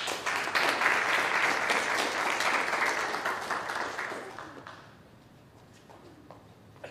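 A small audience applauding, the clapping dying away about four to five seconds in.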